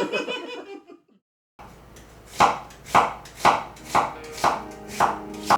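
Kitchen knife chopping vegetables on a cutting board: seven even strokes, about two a second.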